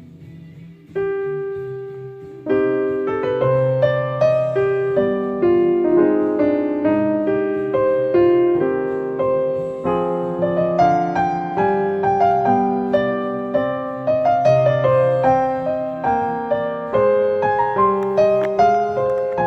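Piano music: a single chord about a second in, then a steady flowing melody of many notes from about two and a half seconds in.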